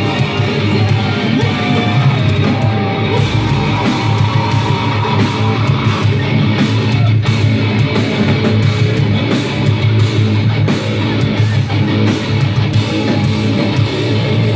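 Live metalcore band playing loud heavy music with electric guitars and a drum kit, heard from within the crowd.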